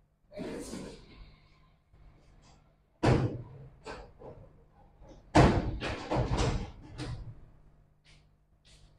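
A series of knocks and thuds from objects being handled and set down, the loudest about five and a half seconds in.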